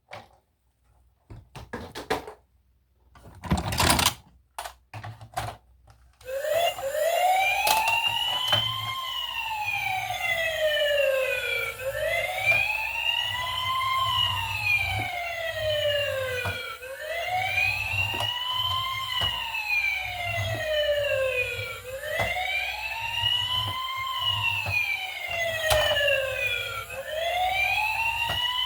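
A few clicks and a knock of handling, then about six seconds in a toy emergency vehicle's electronic siren switches on: a wail that slowly rises and falls in pitch, one sweep about every five seconds.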